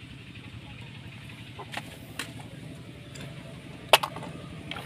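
A few sharp plastic clicks and knocks from a hard-plastic toy dump truck being handled, the loudest near the end, over a steady low background hum.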